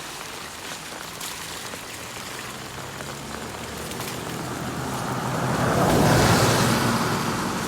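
Heavy rain falling steadily, and about two-thirds of the way through a vehicle passes on the wet road, its tyre hiss and engine swelling up and then fading.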